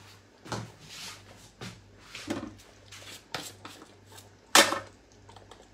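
Kitchen handling noises while spices are being measured out: a string of short knocks and rustles, with one louder clatter about four and a half seconds in.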